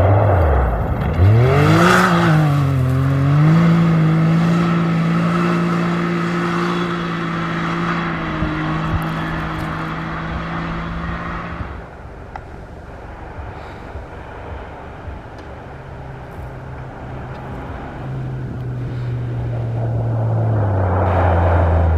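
Rally-raid vehicle engines at speed: one passes close with its pitch dropping just after the start, then runs on at steady revs until the sound breaks off suddenly about halfway through; a second engine at lower pitch grows louder as it approaches near the end.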